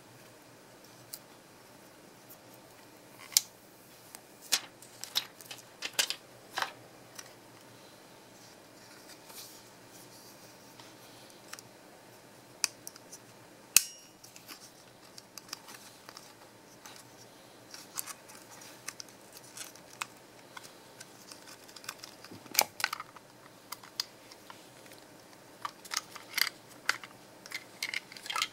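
Hard plastic clicks and snaps as an action camera's clear waterproof housing is handled, unlatched and the camera taken out of it, with scattered sharp clicks and a few louder snaps.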